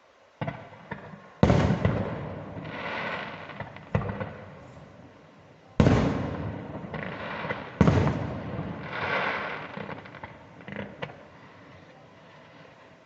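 Aerial fireworks bursting: a string of about five sharp bangs, each trailing off into a crackling tail, with a few fainter crackles near the end.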